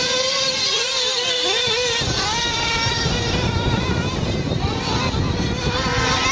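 Small two-stroke nitro glow engines of 1/8-scale RC off-road buggies racing, their high whine rising and falling with the throttle.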